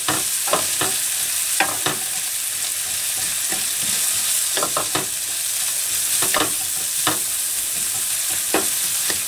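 Diced onions and bacon sizzling in a hot frying pan, with a wooden spatula scraping and stirring through them in short, irregular strokes.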